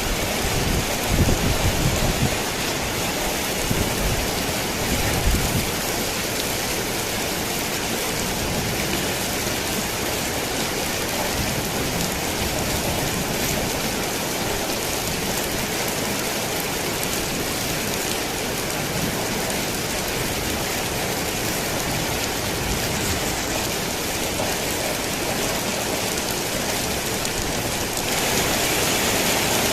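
Steady rain on a tin roof, with low rolling thunder in the first few seconds that dies away. Near the end the rain suddenly gets louder and brighter.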